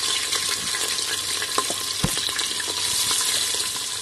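Chunks of meat frying in hot oil in an aluminium pressure cooker, a steady loud sizzle with scattered spattering ticks and a single low knock about two seconds in.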